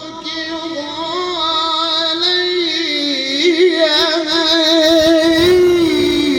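A male Quran reciter chanting in the melodic tajwid style, drawing the word 'rabbuk' out into one long ornamented phrase. The voice winds up and down with a wavering vibrato and climbs in pitch near the end.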